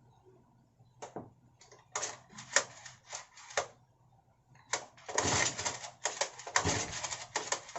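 Honda GX35 four-stroke brush-cutter engine being pull-started with its recoil starter: a few short rattling pulls, then a longer run of scratchy, clattering pulls. The engine does not catch.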